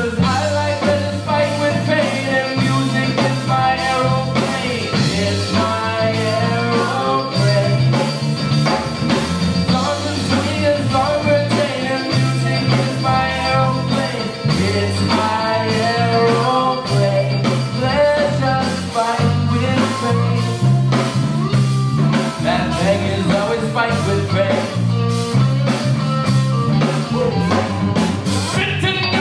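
Live rock band playing: voices singing over electric guitar, bass guitar and a drum kit keeping a steady beat.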